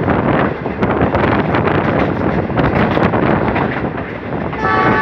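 Wind buffeting the microphone beside a moving passenger train, over the train's running rumble and irregular clicks and knocks from the wheels on the track. Near the end a train horn starts, one steady chord of several tones.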